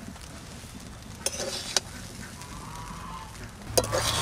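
A spatula mixing cooked rice in a steel kadai: soft scraping, with two clicks of the spatula against the pan about a second in and a sharper knock near the end.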